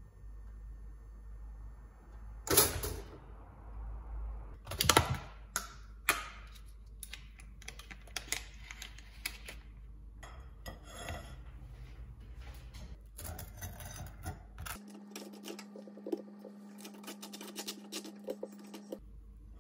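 Kitchen handling sounds: two sharp knocks and a run of small clicks, then a plastic spread tub being handled and a table knife scraping margarine across toast on a plate. A steady low hum sits under the last few seconds.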